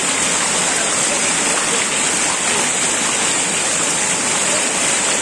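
Steady rush of falling water from a waterfall, with water spilling over rocks close by.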